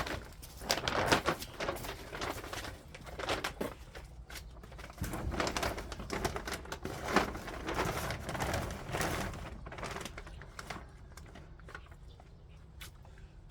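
A garden hand tool scraping and chopping into soil in irregular strokes, busier in the first two-thirds and sparser near the end.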